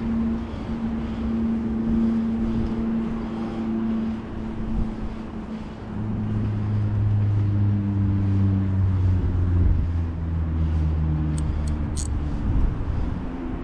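Daiwa Tatula 300 baitcasting reel being cranked on a big-bait retrieve, its gears giving a steady hum that shifts lower about halfway through as the cranking changes. A few sharp clicks come near the end.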